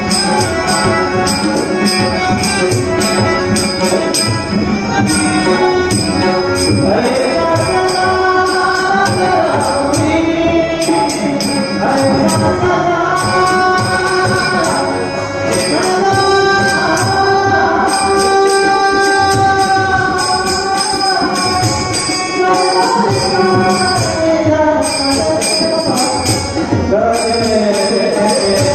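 Marathi abhang bhajan music: a harmonium carrying a melody of held and gliding notes over a steady jingling rhythm of small hand cymbals and drum.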